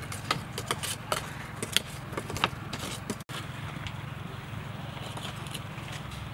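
A wooden spatula stirring, scraping and knocking against a pot on a clay charcoal stove: a run of sharp irregular clicks, thickest in the first half, over a steady low hum.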